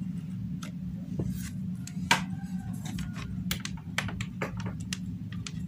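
Scattered light clicks and taps of plastic test-lead plugs and probes being handled and plugged into an analog multitester, over a steady low hum.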